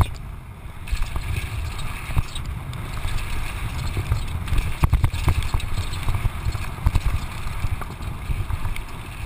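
Downhill mountain bike running fast over a loose, rocky gravel trail: tyres crunching and the bike rattling, with sharp knocks at bumps, over a heavy, uneven rumble of wind buffeting the microphone.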